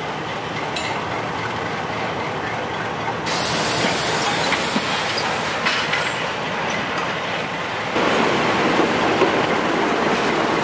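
Freight train moving past close by behind a diesel locomotive: engine running and wheels rolling on the rails. The sound gets louder about three seconds in and again about eight seconds in, as the locomotive comes alongside.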